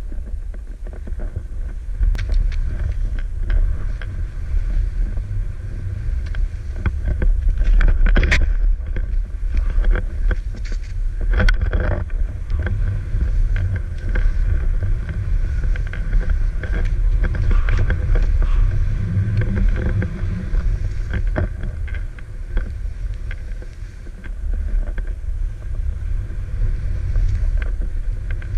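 Wind buffeting a GoPro's microphone in a steady low rumble while a snowboard slides and turns through deep powder snow, with a hiss of snow and a few sharp knocks and scrapes, the loudest about eight and eleven seconds in.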